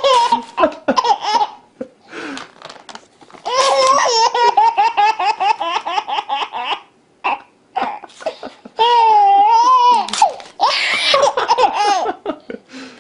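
A baby laughing hysterically in three long bouts of rapid belly laughs, set off by the sound of paper being torn.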